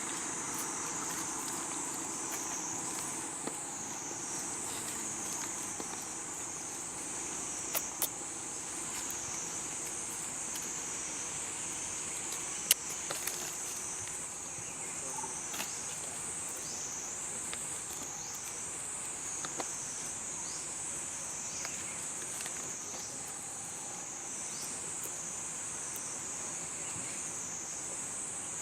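A steady, high-pitched insect chorus that wavers slightly in pitch, with a few sharp clicks, the loudest about halfway through.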